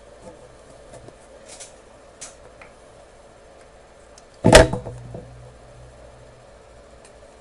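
Faint scratches and small clicks, then a single loud knock about halfway through, followed by a short low hum that dies away.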